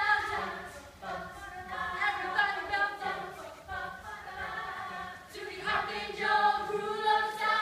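A group of young performers singing together, unaccompanied.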